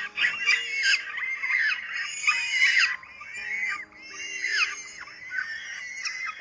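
Birds calling: many overlapping high-pitched chirps and squeals, one after another, with faint background music of long held low notes underneath.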